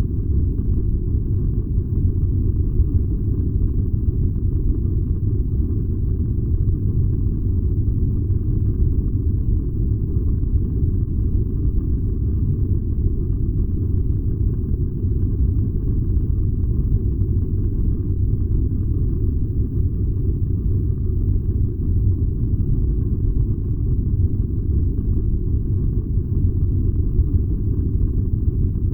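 Furnace running with a steady, deep rumble that does not change.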